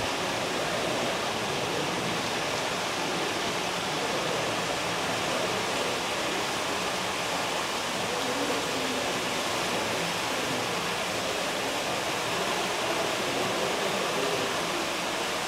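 Steady rushing of falling water, an even hiss that holds at one level throughout.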